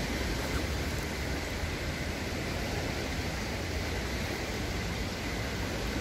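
Steady rushing noise with a low rumble underneath and a faint, steady high tone.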